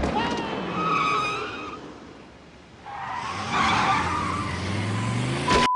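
Car tires squealing and skidding, then a car engine revving up with a rising pitch from about three seconds in. A steady electronic beep tone starts just before the end.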